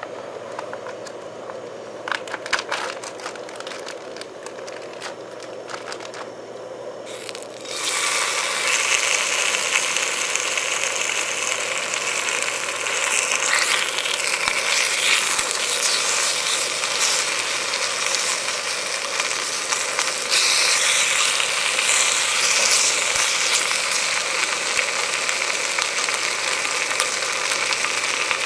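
Bacon sizzling in a hot cast-iron skillet on a cassette-gas single burner. At first the burner hisses steadily under the smoking pan. About eight seconds in, a loud sizzle starts suddenly as the bacon goes in, and it grows louder again at about twenty seconds as more rashers are added.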